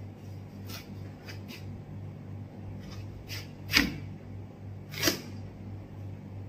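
Kitchen knife cutting through a watermelon, a scatter of short crisp cracks as the blade splits the rind and flesh, with two louder cracks about four and five seconds in. A steady low hum runs underneath.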